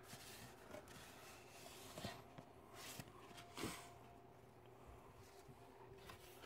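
Faint rubbing and rustling of a vinyl record's white paper inner sleeve being slid out of its jacket and handled, with a few soft swishes about two, three and three and a half seconds in.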